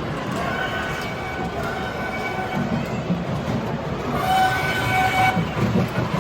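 A train's horn sounds twice, a held chord each time, the second blast shorter, over the rumble of a train that grows louder toward the end.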